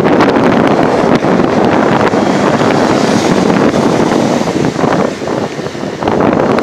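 Wind buffeting the microphone of a phone filming from a moving motorcycle, over the rush of traffic and road noise; it eases briefly about five seconds in.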